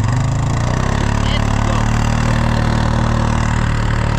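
A vehicle's engine picks up from idle over the first second, as the vehicle moves off with its passengers aboard, then runs steadily.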